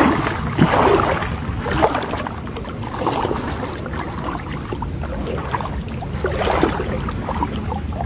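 Muddy floodwater sloshing and swirling around a person's legs as he wades waist-deep, in irregular surges with each step.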